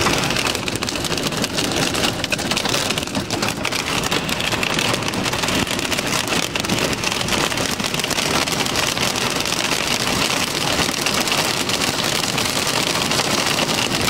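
Heavy rain pelting the roof and windows of a car: a dense, steady patter of drops.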